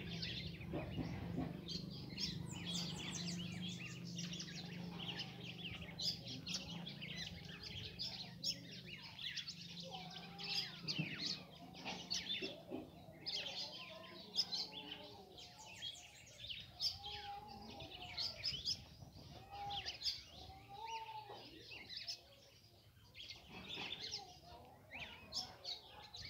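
Red-cowled cardinals chirping constantly while feeding on the ground, many short high chirps overlapping. Lower, arching calls join in the middle, and a low steady hum runs through about the first half.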